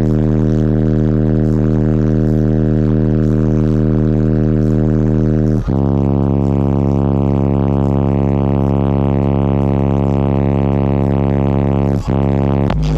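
Bass-heavy music played loud through a car audio system's subwoofers: long, droning held bass notes that change pitch about six seconds in and again near the end.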